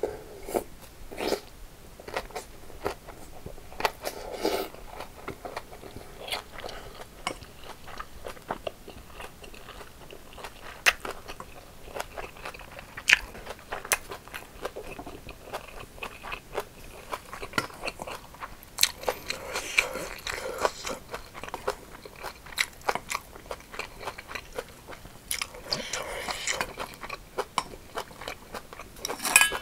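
Chewing and crunching of rice mixed with crisp raw cucumber, full of small wet mouth clicks and smacks, with thicker runs of crunching twice in the second half. A louder sharp knock comes near the end.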